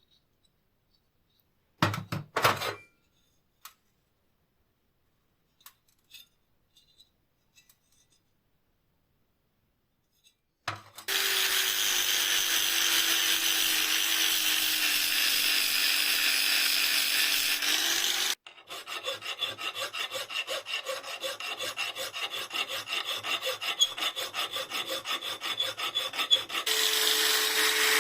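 A few brief clicks, then from about 11 seconds a small power tool grinding or abrading rusty steel, running steadily with its pitch sagging slightly. About 18 seconds in it changes to a fast, even rhythmic rasping, then turns steady again near the end.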